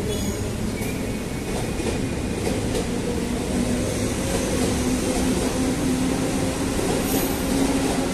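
Electric commuter train (KRL) moving slowly through the station, a steady hum over a continuous rail rumble.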